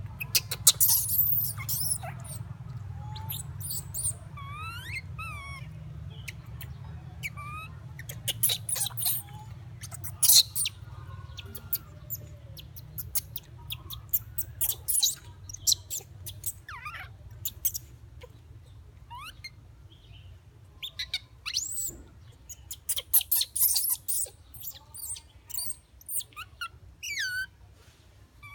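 Pigtail macaque squeaking in many short, high, upward-sliding calls, with sharp clicks scattered between them over a steady low hum.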